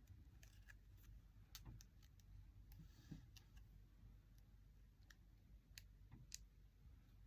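Near silence with faint, scattered small clicks and taps from hands handling cut craft vinyl and paper, about a dozen spread irregularly.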